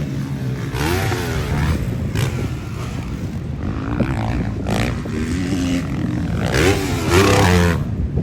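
Motocross bike engine revving, its pitch rising and falling again and again as the throttle opens and closes, loudest near the end.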